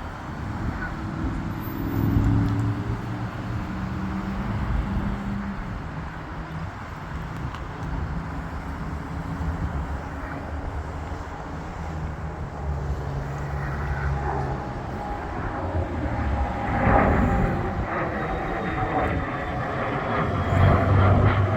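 Airplane engines running steadily, with a thin whine joining about two-thirds through and the sound growing louder near the end, as in an aircraft taxiing and powering up for takeoff.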